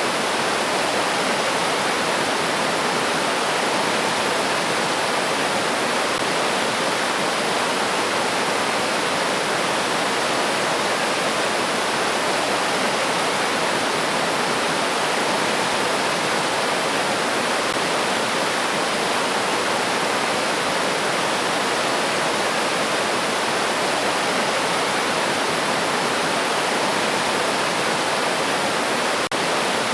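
River water rushing steadily over rocks: a dense, even hiss of flowing water.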